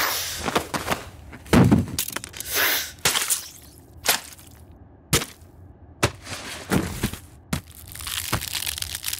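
A quick run of sharp cracks and knocks, about ten in nine seconds, with a heavy thud a little under two seconds in and a longer hissing swish near the end: produced sound effects of a sudden violent struggle in which someone is wounded.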